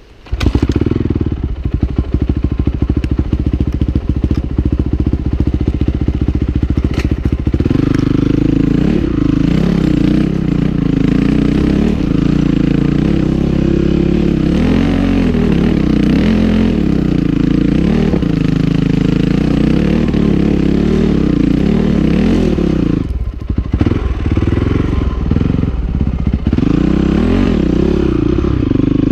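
Single-cylinder four-stroke engine of a 2008 Honda CRF450R dirt bike coming in suddenly at the start, running at a rapid, even idle beat for several seconds, then revving up and down as it works over rocky ground, with a brief drop in throttle near the end.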